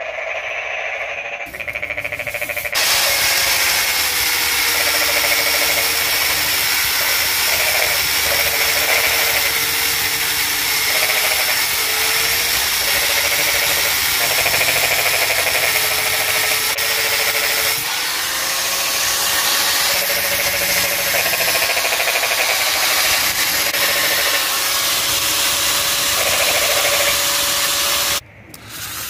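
Electric angle grinder running, its motor pitch repeatedly sagging and recovering as a wooden dowel is pressed against it under load. It starts about three seconds in and cuts off suddenly near the end.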